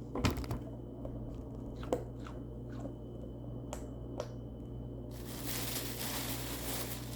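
Bubbles of a silicone Pop-It fidget toy being pressed: a handful of soft, irregularly spaced pops. From about five seconds in, a steady hissing noise.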